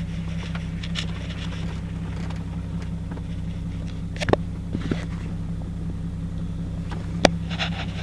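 Jeep Cherokee XJ engine running steadily at low revs, with two sharp knocks, about four and seven seconds in.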